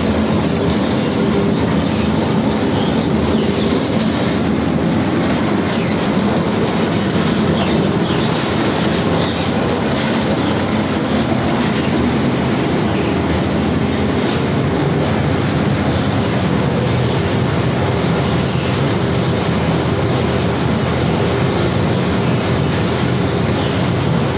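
Processing-mill machinery running: a loud, steady mechanical din with continuous rapid rattling and clatter over a low hum.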